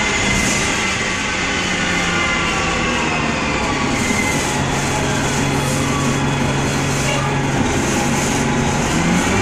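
Gillig Phantom transit bus heard from inside the passenger cabin while moving: engine and drivetrain running over steady road noise, with several whining tones that fall in pitch through the middle and begin to rise again near the end.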